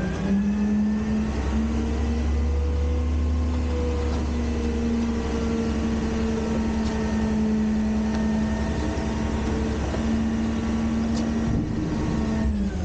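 Front-load garbage truck's diesel engine held at raised revs to drive the hydraulics, with a steady whine over the engine. The revs climb at the start and drop right at the end.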